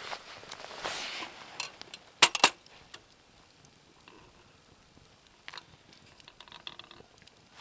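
Two sharp clinks of hard objects knocked together, close together about two seconds in, between stretches of soft rustling.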